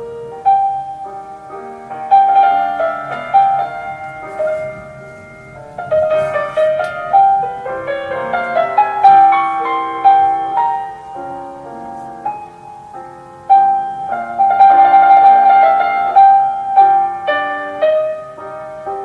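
Classical piano music: a melody in phrases of struck notes, with one high note returning again and again over chords.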